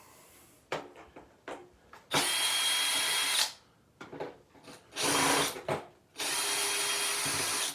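Power drill-driver running in three bursts, each a second or so long, backing out the screws of a vacuum cleaner's access panel. A few light clicks come before the first burst.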